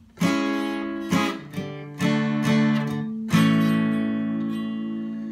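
Acoustic guitar strumming a few closing chords, the last struck about three seconds in and left to ring out and slowly fade.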